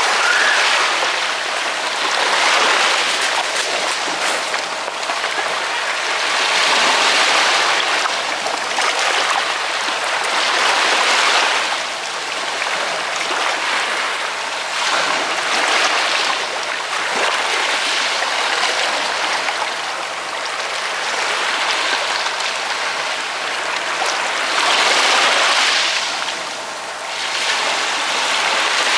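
Ocean waves breaking and washing on the shore in a continuous hiss. The surf swells and eases every few seconds, with stronger surges at about 3, 7, 11 and 25 seconds in.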